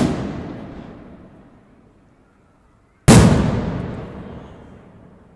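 Aerial fireworks shells bursting: a loud bang right at the start and another about three seconds in, each followed by a long echoing tail that slowly fades away.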